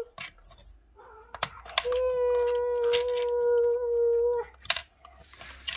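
A young girl's voice drawing out the counting word "two" as one long, steady note for about two and a half seconds, with a few light clicks and taps from plastic toy pieces being handled.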